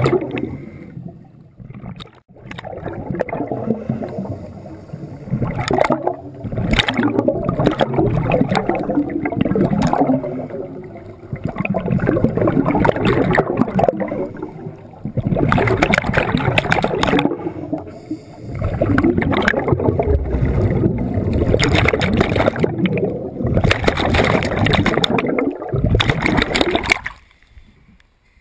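Scuba regulator exhaust bubbles gurgling underwater in repeated breaths, each a loud burst of a few seconds with short lulls between. It drops away near the end.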